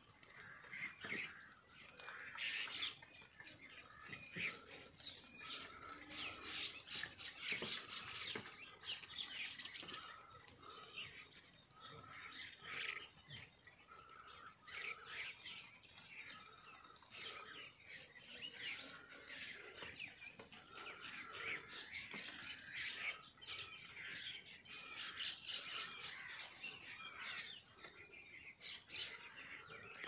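Small wild birds chirping: many quick, high chirps overlapping throughout, with a short lower note repeated about every second.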